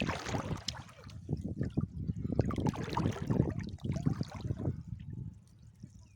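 River water splashing and trickling in irregular bursts as a fishing net is worked through it, dying down near the end.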